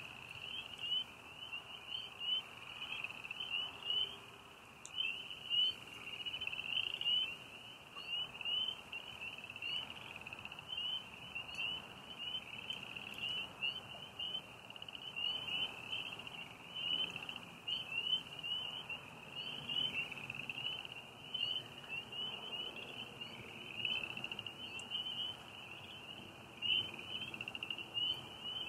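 Night chorus of frogs and crickets: many high chirps overlapping into one continuous pulsing band, without pause.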